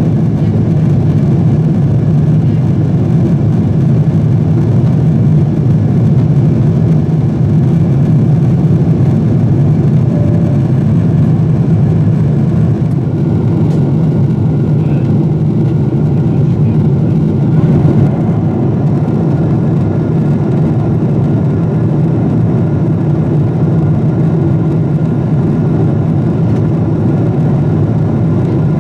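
Steady in-flight cabin drone of a Boeing 747-8, the hum of its GEnx-2B engines and the rush of air, heard inside the cabin from a window seat over the wing. The sound is a deep, even rumble that holds level throughout.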